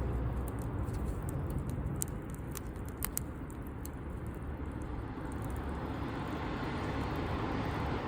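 Wood campfire crackling: scattered sharp pops and snaps over a steady low rush of burning, with a louder pop about three seconds in.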